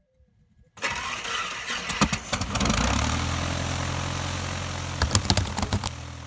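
A light aircraft's piston engine starting: a noisy start-up from just under a second in with a few sharp clicks, then the engine catches at about three seconds and runs with a steady low drone, with more clicks around five seconds in.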